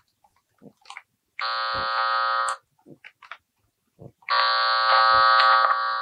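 Handheld inductive tone probe sounding its loud buzzing tone twice: about a second long near the start, then again from about four seconds in. Faint tapping of the probe tip on the cables comes in between. The tone means the probe is touching the Ethernet cable that carries the tone generator's signal, marking that cable as the one.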